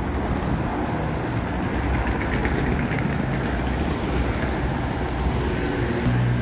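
Road traffic on a city street: cars and vans passing close by, their engine and tyre noise making a steady, fairly loud rush. Near the end a low, steady engine hum joins in.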